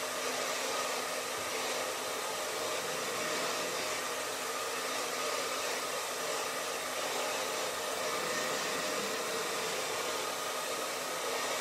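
Handheld hairdryer blowing steadily, drying wet paint: an even rush of air with a faint low hum under it.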